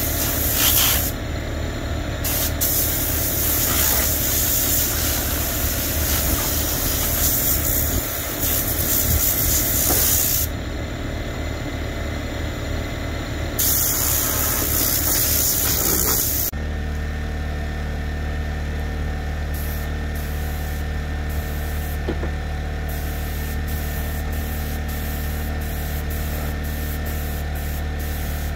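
A hissing spray from a hose-fed detailing tool used inside a car, running in long bursts that stop and start again over the first sixteen seconds or so, then stopping. Under it, and alone after it stops, an engine runs with a steady hum.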